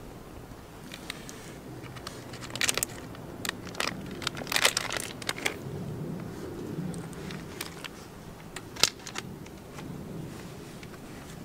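Sausages frying in oil in a cast-iron skillet over a small wood fire: a steady sizzle with scattered sharp pops and crackles, thickest around the middle as more sausages are laid into the pan.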